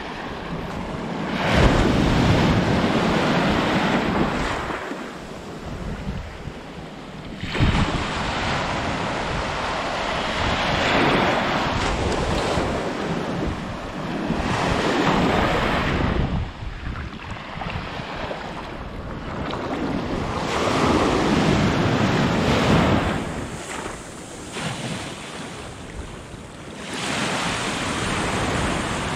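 Baltic Sea surf breaking and washing up the beach, swelling and fading in surges every few seconds, with wind buffeting the microphone.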